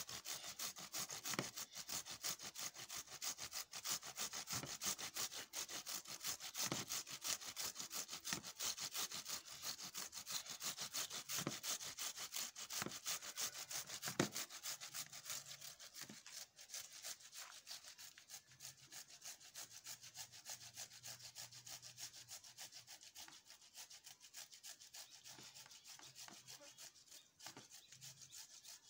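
Tomatoes rubbed back and forth on a handheld grater in rapid, rhythmic strokes. The strokes are louder for about the first half, then softer.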